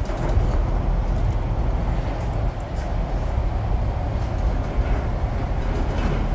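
Steady low rumble of open parking-garage background noise. Near the end, the elevator's stainless steel landing doors begin sliding shut.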